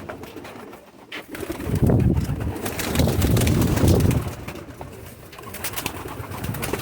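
Domestic pigeons cooing in a loft: a loud, low, throbbing coo from about one and a half seconds in until about four seconds, with light clicks scattered around it.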